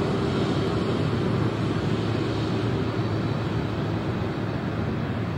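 The four jet engines of a Boeing 747-400 at take-off power as the airliner rolls past on its take-off run: a steady, deep rumble with a hiss above it. It eases slightly after about a second and a half as the aircraft moves away.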